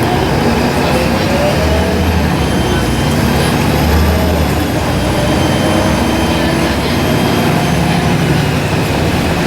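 Volvo B7RLE bus's six-cylinder diesel engine running under way, with the turbocharger's high whistle rising and then falling away as the engine works.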